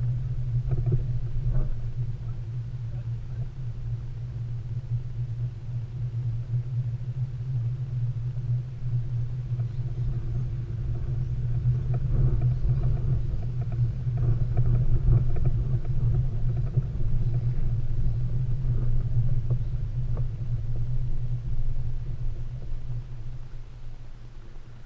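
Steady low rumble of a boat trailer being towed over pavement, with a few light knocks and rattles from the trailer and boat. It builds through the middle and eases off near the end as the rig slows.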